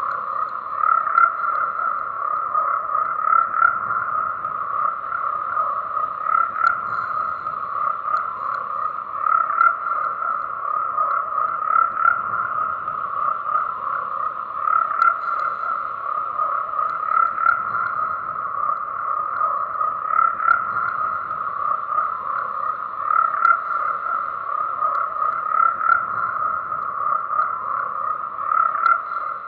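A dense chorus of frogs calling continuously, swelling roughly every two and a half seconds.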